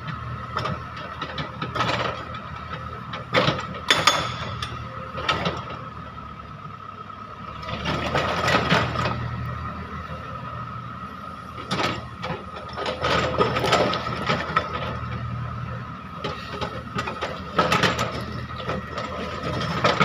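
Wheeled excavator's diesel engine running steadily with a constant high whine, while its hydraulic breaker works in spells of hammering and sharp metallic clanks.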